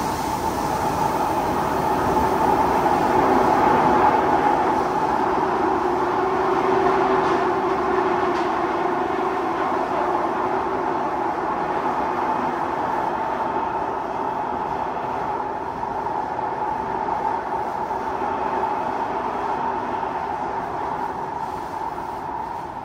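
Kawasaki C751B metro train heard from inside the passenger car, running through an underground tunnel: a steady rushing rumble with a steady whine. It gets gradually quieter over the second half.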